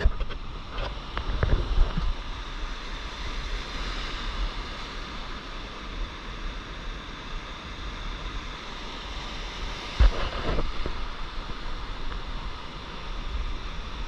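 Shallow broken surf washing in as foamy whitewater, a steady rushing hiss of water, with wind buffeting the microphone, heaviest near the start and again about ten seconds in.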